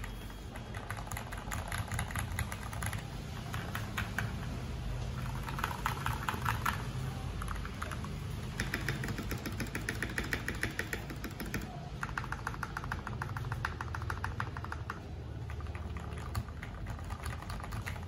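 Fast typing on an MK870 mechanical keyboard fitted with Cherry MX Hyperglide Black linear switches: dense runs of key clacks in several bursts of a few seconds each, a sound test of the stock switches.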